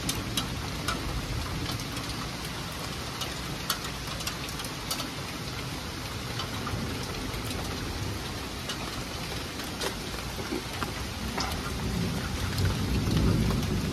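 Steady rain: an even hiss with scattered sharp taps of drops landing close by, and a low rumble that swells near the end.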